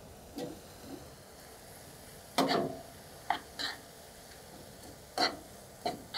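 Beef mince and mushrooms frying in a hot pan with a faint steady sizzle, stirred with a utensil that knocks and scrapes against the pan in a series of short clatters, the loudest about two and a half seconds in.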